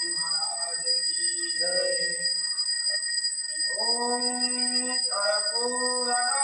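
A bell rings continuously with steady high tones through an evening aarti, under a voice chanting or singing the aarti with long held notes about four seconds in.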